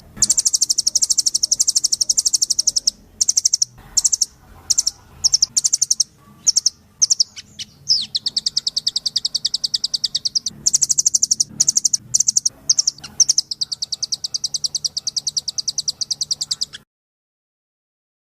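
Recorded songbird song: fast, high trills in runs broken by short pauses, cutting off abruptly near the end.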